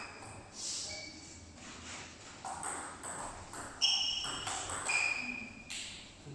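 A table tennis rally: the celluloid ball clicks sharply off the bats and bounces on the Donic table, about two hits a second, each with a brief ring. The hits stop near the end as the point finishes.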